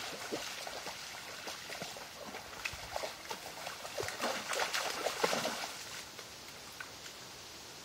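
Shallow creek water splashing and trickling in uneven bursts, busiest a little past halfway and dying down to a faint hiss near the end.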